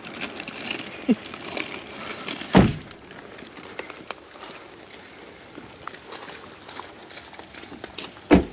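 Two dull thumps, one about two and a half seconds in and one near the end, with a few small knocks over faint background noise.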